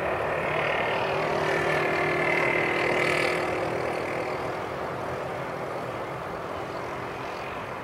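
Boeing 747-400F's four jet engines running with a broad rush and a steady high whine, swelling to a peak about two to three seconds in, then slowly fading.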